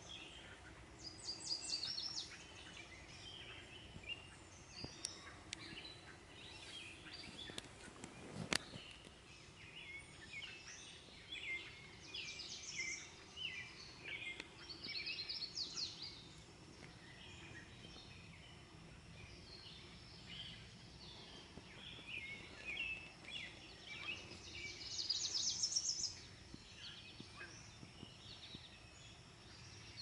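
Songbirds singing in an early-morning dawn chorus: many overlapping chirps and quick trills from several birds, faint against a steady outdoor background. A single sharp click comes about eight seconds in.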